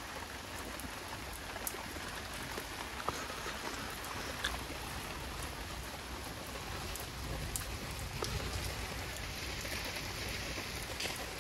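Steady rain falling on a wet paved yard and standing water, with scattered louder drop hits.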